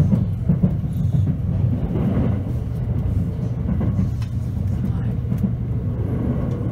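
Running noise of a passenger train heard from inside the carriage: a steady low rumble of wheels on the rails, with a few sharp clicks from rail joints.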